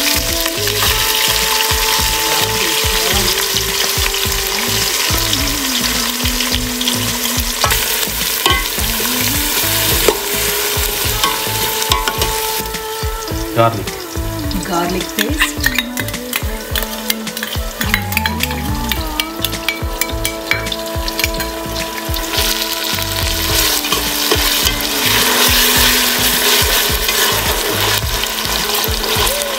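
Sliced onions sizzling in hot oil with whole spices in a stainless steel pot, stirred with a metal spoon that now and then scrapes and taps the pot: onions being fried down as the first stage of a biryani.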